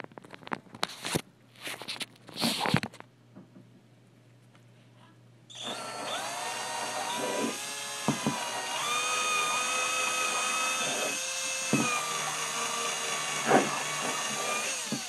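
A few clicks and knocks, then an electric drill starts about five and a half seconds in and runs steadily with a whine, spinning an engine hone brush inside a rusted solenoid valve to hone the rust out of its bore.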